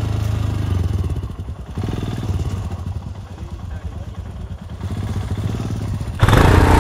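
Royal Enfield Himalayan's single-cylinder engine running at low revs, a steady low pulsing as the bike creeps over rocky ground. About six seconds in it gives way abruptly to a much louder, rougher stretch of noise.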